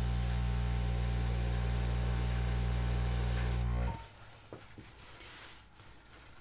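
Airbrush and its small air compressor running, a steady hiss of air over a low motor hum as it blows wet acrylic paint across the canvas; both cut off suddenly about four seconds in.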